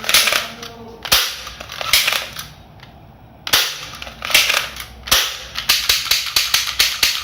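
Toy Glock pistols firing: single shots roughly a second apart, then a quicker string of shots, several a second, near the end.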